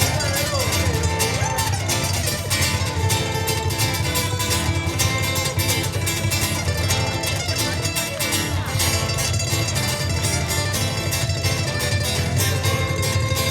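Live ukulele music: fast, busy plucking and strumming of small steel-bright strings, running without a pause.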